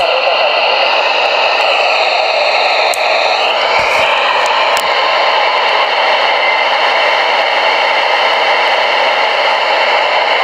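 Steady loud static hiss from a CB radio's speaker on channel 25 (27.245 MHz) while the 11-metre band is open, with no station talking. The hiss is thin and narrow-band, with faint wavering tones in it about three seconds in and a few small clicks.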